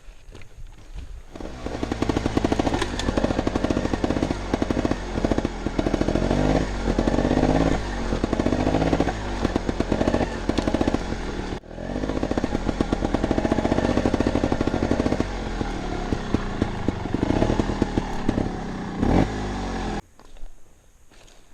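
Montesa Cota 315R trials motorcycle's two-stroke single-cylinder engine under way, revs rising and falling with short clattering knocks; it cuts off abruptly near the end.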